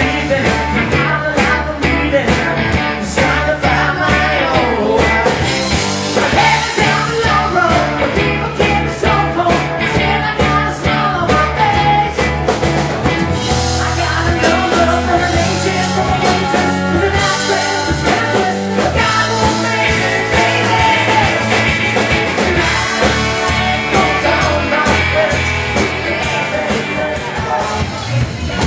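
Rock song with a male singer over electric guitar, bass guitar and drums, playing loudly and continuously.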